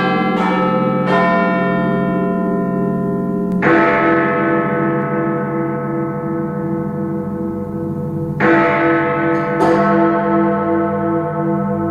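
Big Ben and the Westminster clock bells striking. Two quick strikes near the start are followed by heavier strikes about five seconds apart, each ringing on with a long, wavering hum between blows.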